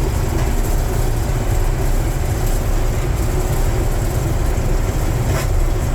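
1978 John Deere 4400 combine running steadily while shelling corn: a loud, constant low rumble of engine and threshing machinery. A brief click about five and a half seconds in.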